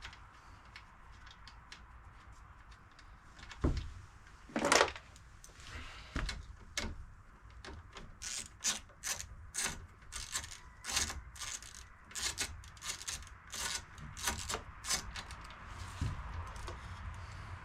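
Scooter throttle assembly being worked onto the handlebar by hand: a dull thump about four seconds in, a louder scrape just after, then a run of short scrapes and clicks, about one or two a second, as the part is shifted to line its locating pin up with the hole in the handlebar.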